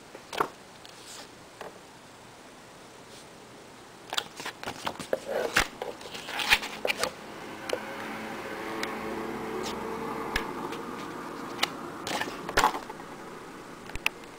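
Paper handling: a printed booklet rustling as its pages are leafed through, with sharp taps and clicks of handling, starting in earnest about four seconds in.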